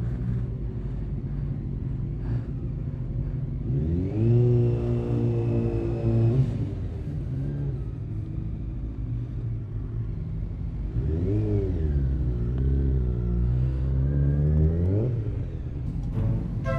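Motorcycle engine pulling away up a steep hill. The revs climb about four seconds in and hold for a couple of seconds before dropping. They climb again around eleven seconds, dip, and rise once more before falling near the end, over a steady low rumble of wind and road.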